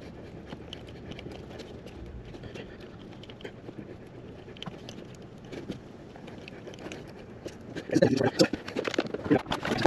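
Faint rustling and small clicks of stripped copper wire ends being twisted together by hand under a car dashboard, with louder handling knocks and rustles near the end.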